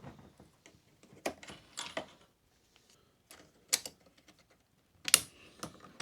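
Scattered light clicks and taps as small parts are handled while a cable tie is fitted to the electric unicycle's motor cable: about five sharp clicks with quiet gaps between them, the loudest a little after five seconds in.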